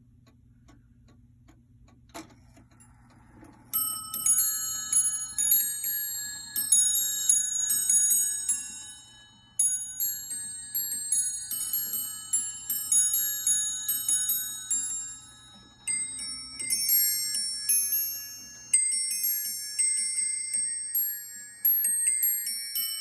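Antique Rimbault of London bracket clock: faint ticking and a click about two seconds in, then its musical chime starts a few seconds in. A brass pin barrel lifts a row of hammers that play a quick tune of high, ringing struck notes in several phrases with short breaks between them.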